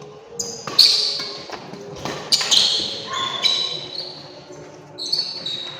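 Badminton doubles rally: sharp racket strikes on the shuttlecock and high-pitched squeaks of court shoes on the floor, several in the first three and a half seconds and another burst near the end.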